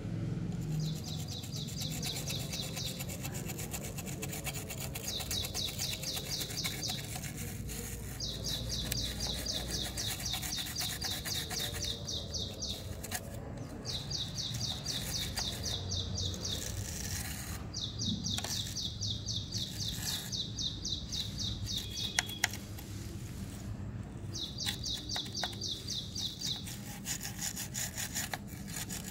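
Dry toothbrush bristles scrubbing over a dusty computer motherboard, a continuous scratchy rubbing of many quick strokes. A high, rapid trill repeats in spells of two to four seconds over it.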